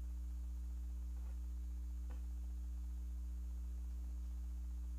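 Steady low electrical mains hum in the sound system, a constant buzz with higher overtones and no change in level. Two very faint brief sounds come about one and two seconds in.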